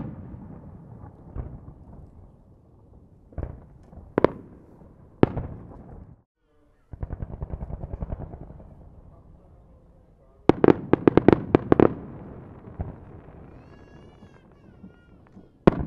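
Aerial fireworks shells bursting: single sharp bangs with echoing tails, then a rapid crackling volley of a dozen or so reports, and one more big bang near the end. A faint wavering whistle sounds shortly before the last bang, and the sound drops out briefly about six seconds in.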